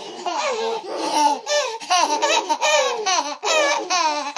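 Babies laughing hard in a run of high-pitched laughs, many falling in pitch, set off by their mother's pretend sneeze.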